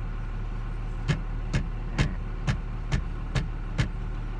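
Ram pickup's Cummins turbo diesel idling with a steady low hum, heard from inside the cab. About a second in, a run of seven sharp clicks comes over it, evenly spaced at about two a second, and stops near the end.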